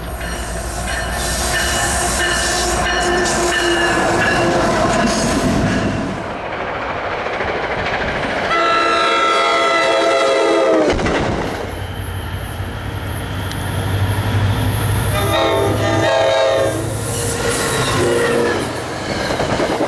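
Train horns sounding over the noise of moving trains. A loud chord of several steady horn notes comes about eight and a half seconds in and lasts about two seconds, and another shorter horn blast follows about fifteen seconds in.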